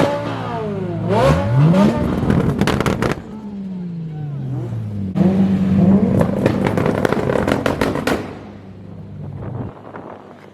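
Car engine revved hard, pitch rising then falling, with a run of sharp crackling pops. It is then held at a steady rev with more rapid pops before fading away near the end.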